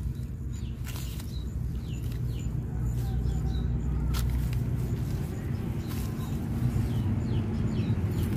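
A steady low rumble, with a few short, falling bird chirps a couple of seconds in and brief rustles of grass as a dog noses through it.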